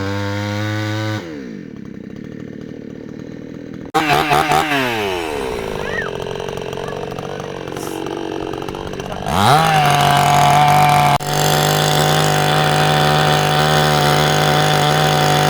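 A small petrol engine running loudly, its pitch dropping and rising as it is throttled down and revved up again, with several abrupt cuts between stretches; it is steady near the end.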